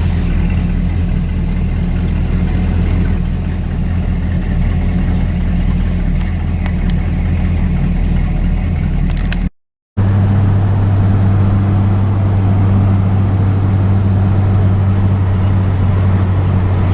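1964 Chrysler 300K's V8 engine running steadily. About nine and a half seconds in the sound cuts out for a moment, then the engine runs on with a slightly different, lower hum.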